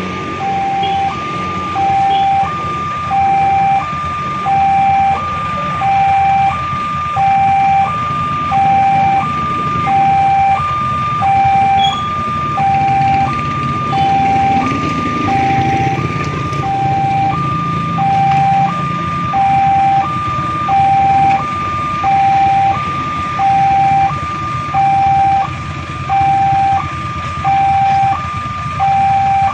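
Railway level-crossing warning alarm sounding steadily: an electronic signal that switches between a low tone and a higher tone, each held for about a second. It means the barrier is down for an oncoming train. Waiting vehicles' engines run underneath.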